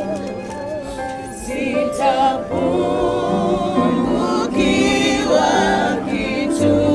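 Gospel music: a choir singing with wavering held notes over a backing of steady low notes.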